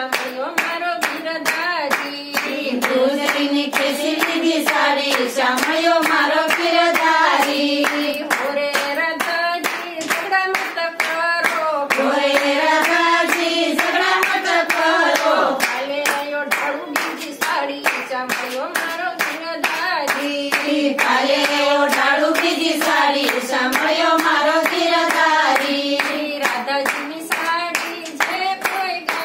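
A group of women singing a Gujarati devotional bhajan together, clapping their hands in a steady rhythm throughout.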